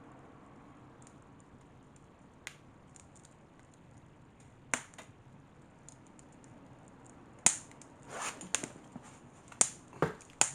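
Wood fire burning a cardboard box packed with sawdust, crackling faintly with scattered sharp pops. The pops come closer together and louder over the last few seconds.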